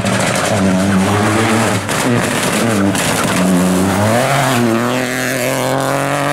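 Peugeot 208 rally car engine revving hard on a closed stage. The pitch drops and climbs again several times as the driver brakes and shifts through a tight bend, then rises and holds high as it accelerates away.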